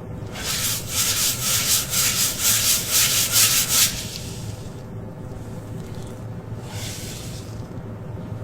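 Rhythmic scratchy rubbing strokes, about three a second, for the first four seconds. Then a quieter steady low hum, with one more scratchy stroke near the end.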